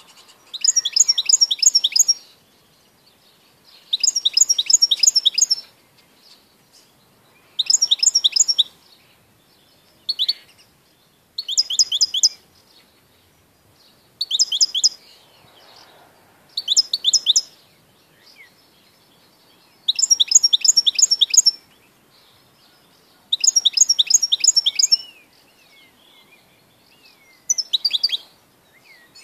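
European goldfinch singing: about ten short phrases, each a quick run of high, sweeping notes lasting a second or two, with pauses of a second or two between them.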